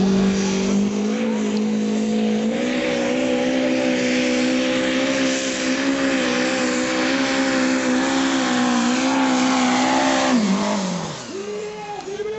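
Compact diesel pulling tractor's engine held at full throttle under load while pulling the sled, its pitch climbing in small steps. About ten and a half seconds in, the throttle is released and the revs fall away quickly.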